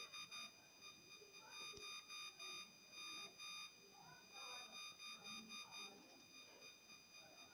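Faint electronic beeping: one steady high tone that sounds in short, irregular beeps, sometimes several in quick succession, over low room tone.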